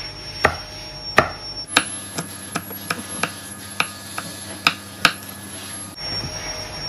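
Kitchen knife chopping green chillies on a cutting board: a string of sharp, separate strokes, roughly two a second and unevenly spaced.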